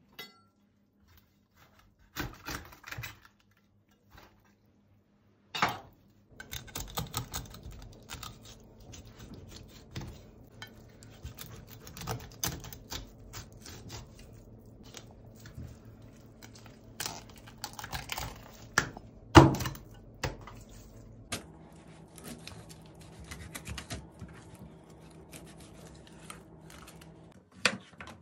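Kitchen knife working on a plastic cutting board as whole fish is cleaned and filleted: irregular taps, clicks and scrapes, with a few louder knocks.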